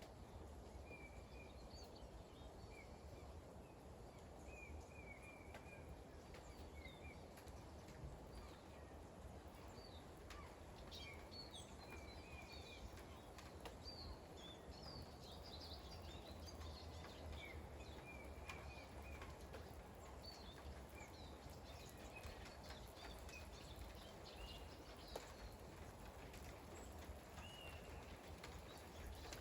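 Faint, steady light rain with small birds calling in short, high chirps throughout.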